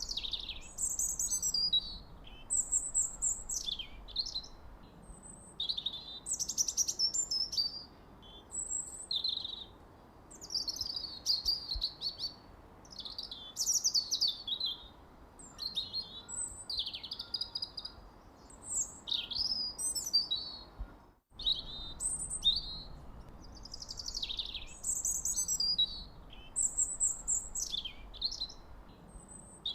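Songbirds chirping almost without pause: many short, high chirps and quick downward-sweeping calls over a faint steady hiss. The sound drops out for an instant about two-thirds of the way through.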